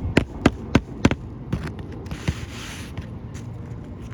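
Hammer striking roofing nails into an asphalt shingle, quick even blows about three a second that stop about a second in, followed by a short scraping rustle of the shingle being handled.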